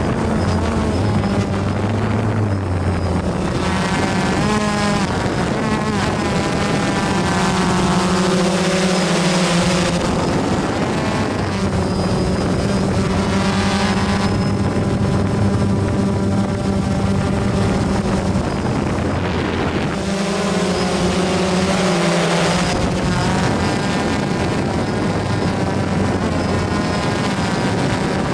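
Electric motors and propellers of a small remote-controlled multirotor drone, heard from its own onboard camera: a loud, steady propeller buzz whose pitch shifts every few seconds as the throttle changes.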